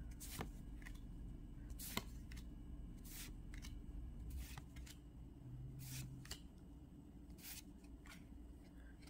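Pokémon trading cards sliding against each other as they are flipped through one at a time, a faint soft swish about once a second.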